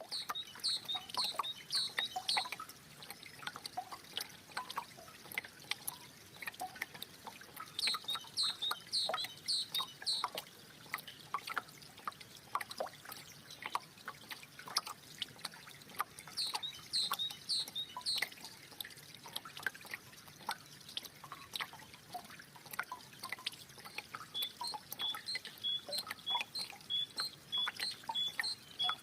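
Water trickling and dripping, a steady patter of small splashes. A bird sings short high phrases of chirps about every eight seconds, then a run of evenly spaced chirps near the end.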